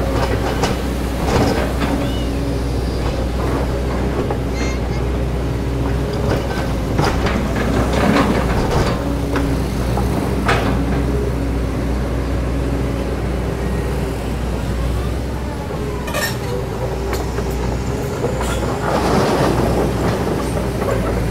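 Kobelco SK200 hydraulic excavator's diesel engine running steadily under load, with a constant low hum and hydraulic tone. Scattered clanks and scrapes come as the bucket digs into the soil.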